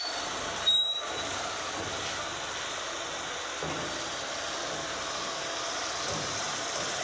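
Steady street noise of a small goods truck's engine running, with a short louder sound about a second in.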